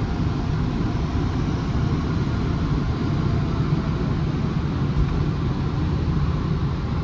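Steady rumble with a rush of noise, heard from inside a car's cabin as it rolls out of the exit of a tunnel car wash.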